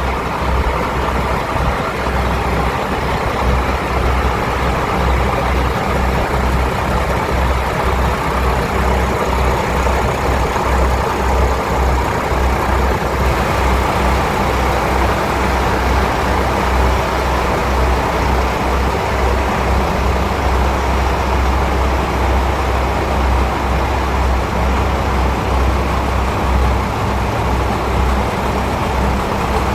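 KiHa 185 series diesel railcar's engine idling with a steady low rumble.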